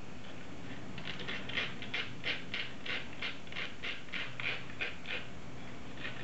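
Cinnamon stick scraped back and forth on a small flat metal hand grater, in short regular strokes, about three a second, starting about a second in.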